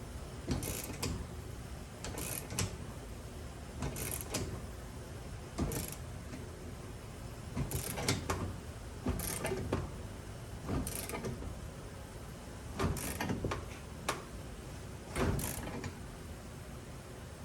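Ratchet wrench working the screw of a ball joint press, clicking in short bursts every second or two as a new ball joint is pressed into the steering knuckle.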